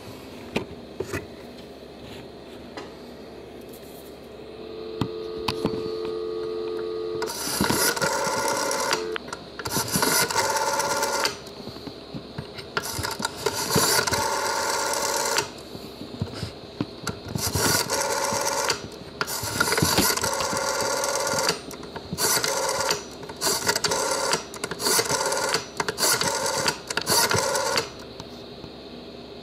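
Dial tone from a Western Electric 500 telephone's handset, a steady two-note hum that stops about seven seconds in as dialing begins. Then about ten digits are dialed on its metal rotary dial, each a one-to-two-second run of rasping and clicking as the dial turns and spins back, the later ones shorter.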